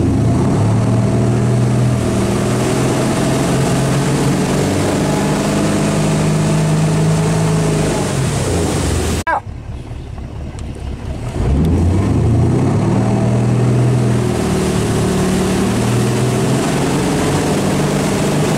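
Motorboat engine running at speed, with water rushing past the hull. About halfway the engine note falls and cuts off abruptly; after a quieter couple of seconds it rises as the boat accelerates again, then settles to a steady run.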